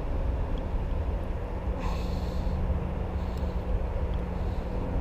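A steady low rumble with a faint droning hum under it, and a short breathy hiss about two seconds in.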